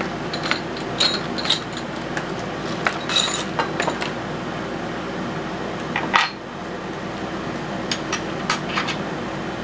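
Small metal lock parts clinking and clicking against each other and a hard surface as they are handled, in scattered light knocks with a short ring, the loudest about six seconds in. A steady hum runs underneath.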